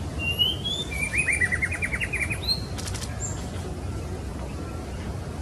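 Female white-rumped shama calling: a short whistle, then a rapid trill of about ten notes, then a single higher note, followed by a couple of sharp clicks about three seconds in. A steady low rumble lies underneath.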